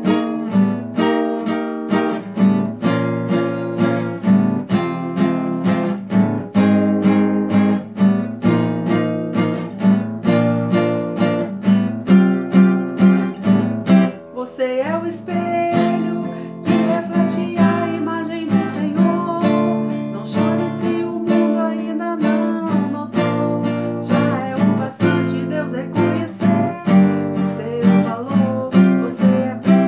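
Nylon-string classical guitar strummed in a steady rhythm, moving through chord changes.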